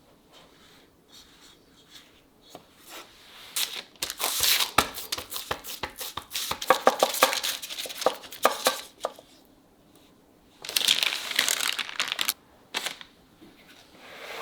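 Parchment baking paper crinkling and rustling as it is handled and folded, in a long spell of crackling from about three and a half seconds in to nine seconds, then a second shorter spell.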